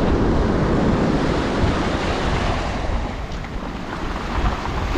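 Sea waves breaking and surf washing on the shore, with wind buffeting the microphone. The wash eases a little past the middle.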